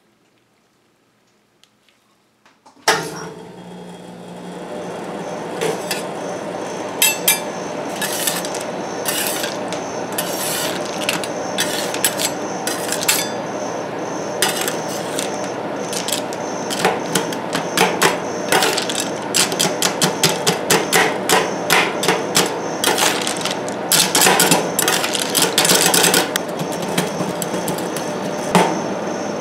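Two steel spatulas chopping and scraping M&M's candies into the rolled-ice-cream base on a steel cold plate: quick metal clacks on the plate mixed with the crunch of candy shells, coming in rapid runs from the middle on. Under it a steady machine hum starts with a click about three seconds in.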